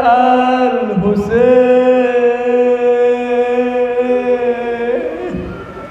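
A man chanting a mournful Ashura maqtal lament. He draws out one long held note that breaks briefly about a second in, holds steady, and fades away near the end.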